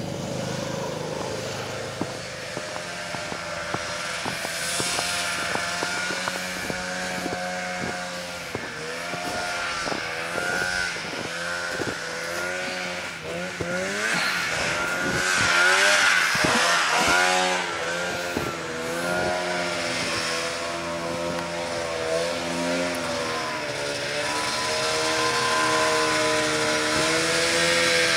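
Arctic Cat snowmobile engine running, its pitch rising and falling as the throttle is opened and eased off, loudest about halfway through and swelling again near the end as a sled comes closer.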